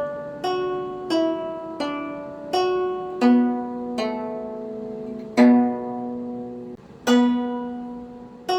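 Slow instrumental melody of single plucked notes, each struck sharply and left to ring out, about nine notes with uneven gaps, like a hymn tune picked out one note at a time.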